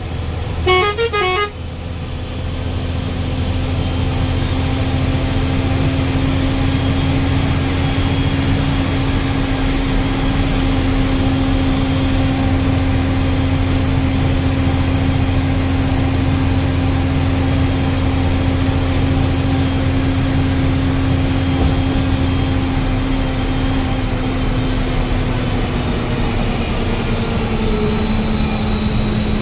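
A vehicle horn gives a few short blasts about a second in. Then a bus engine and road noise drone steadily, growing louder over the next couple of seconds and holding a constant low hum.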